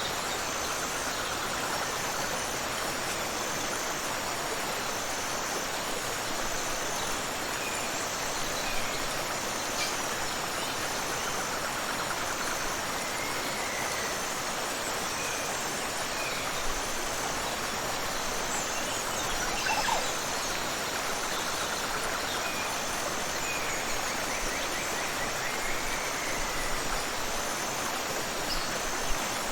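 Waterfall and river water rushing in a steady, dense roar of falling and flowing water, with a few faint short chirps over it.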